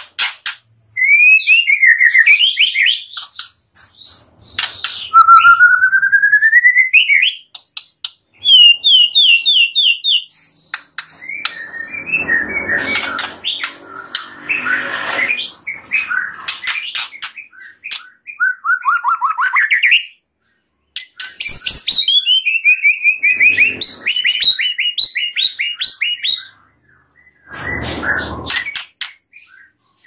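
White-rumped shama singing a varied, loud song of rising whistled glides and quick runs of repeated notes, broken by harsh chattering passages and short pauses.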